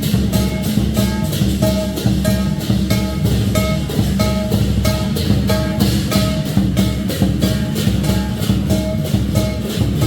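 Background music with a steady beat and a plucked, guitar-like melody.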